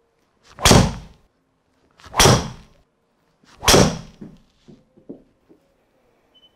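Three driver shots about a second and a half apart, each a sharp crack of a TaylorMade SIM2 driver's head striking the ball. These are test swings to check face contact, which the fitter judges centred. A few faint clicks follow.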